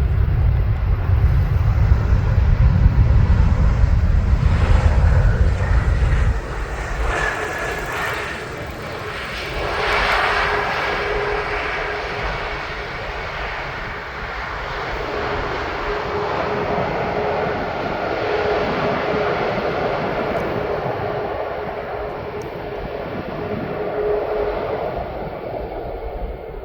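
Jet airliner engines passing on landing approach: a loud deep rumble for the first six seconds, then a whine and a steady drone that carries on to the end.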